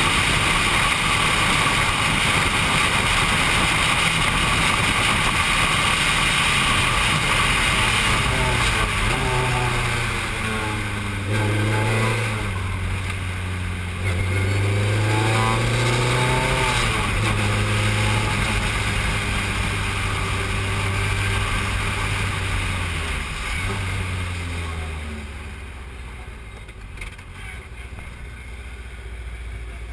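Formula 3 single-seater engine heard from the cockpit over wind noise at speed, its pitch swinging up and down through the middle as the revs rise and fall. Near the end it drops to a lower, quieter, steady running as the car slows.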